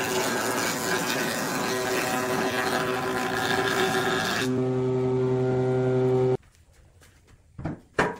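Wood lathe motor running with a steady hum while a tool grinds rough against the spinning wood; the tool noise stops about four and a half seconds in, leaving the motor alone. The hum cuts off suddenly about six seconds in, and two short knocks follow near the end.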